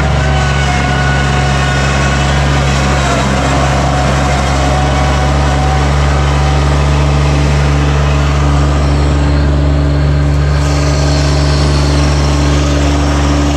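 Bobcat MT100 mini track loader's diesel engine running steadily at a constant speed while the machine drives on its tracks.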